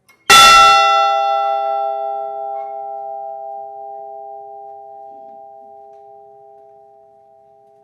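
A large bell struck once, ringing out and fading slowly: its higher tones die away within a couple of seconds while the lower hum lingers. It is a single memorial toll for one lost crew member.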